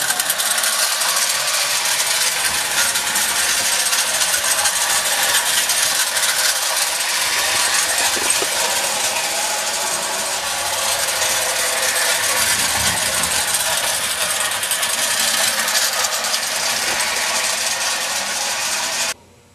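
Marx clockwork toy locomotive running on tinplate track: the wound spring motor's gears whir steadily and the wheels rattle along the rails. The sound cuts off suddenly near the end.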